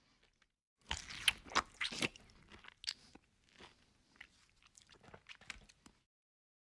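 Close-up eating sounds of a person biting and chewing crunchy food. A burst of loud crunches comes about a second in, followed by softer, sparser chewing that stops abruptly near the end.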